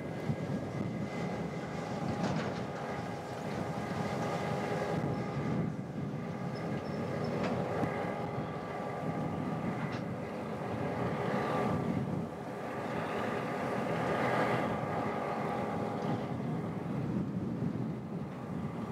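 SCT T class diesel locomotive T404 running steadily as it moves slowly while shunting wagons, its engine a constant drone, with a few sharp clicks and wind rumbling on the microphone.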